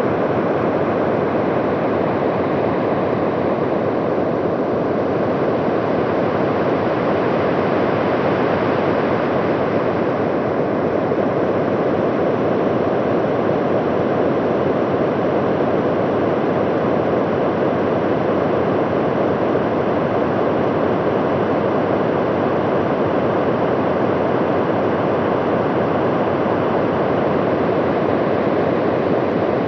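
A steady rushing rumble with no pitch or rhythm, presented as the recorded sound of Venus's atmosphere. It runs unchanged throughout, deep and noisy like a distant storm.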